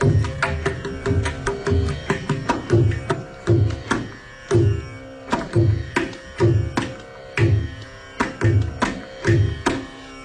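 Hand drum playing a rhythmic passage in Carnatic music: deep bass strokes about twice a second with quick, lighter, sharp strokes between them, over a steady drone.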